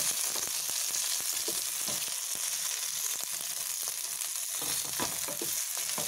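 Boiled potato pieces sizzling in hot oil in a pan, stirred with a wooden spatula that scrapes and knocks on the pan at irregular moments.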